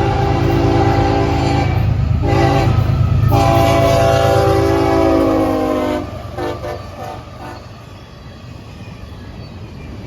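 Freight locomotive air horn sounding three blasts, the last the longest and sliding slightly down in pitch, over the locomotive's low engine rumble. A few short, fainter horn notes follow about six seconds in.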